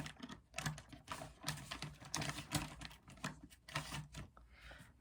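Hands being wiped clean, with soft irregular rustling and rubbing broken by small clicks and taps.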